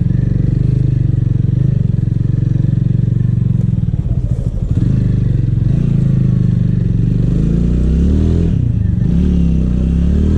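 Motorcycle engine running steadily, its revs wavering up and down about two-thirds of the way through.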